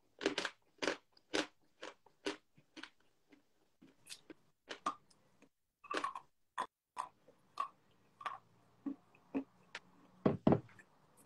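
Crunchy chalk being bitten and chewed close to the microphone: a run of crisp crunches, about two a second at first, then more spaced out, with a louder knock just before the end.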